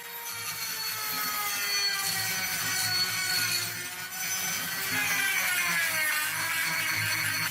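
A power tool running under load, its motor whine sinking slowly in pitch as it works, over a rasping cut. The sound dips briefly about four seconds in, and the pitch sags again soon after.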